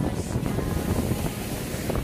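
Wind buffeting the microphone, with surf behind it.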